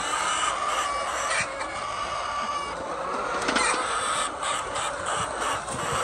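A flock of hens clucking and calling all at once in a steady, overlapping chorus, with a few sharp knocks mixed in.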